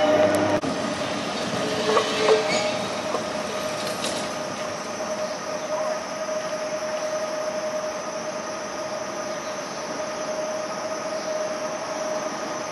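Vintage electric tramcar running slowly along street track, with a steady whine from its motor and gearing. Brief wheel squeal about two seconds in and a single clunk a couple of seconds later.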